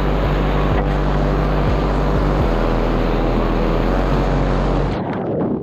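Whitewater rapid rushing and churning right around the kayak, a dense steady noise that falls away about five seconds in.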